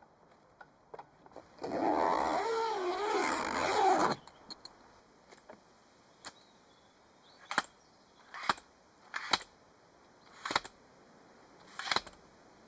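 A roof-top tent's cover being zipped shut in one long zip of about two and a half seconds. It is followed by a telescopic ladder being collapsed, its sections clacking down one after another in six sharp clacks at uneven intervals.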